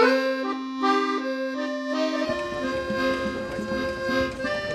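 Background music: a melody of held notes over a sustained low note, with a fuller low part coming in about two seconds in.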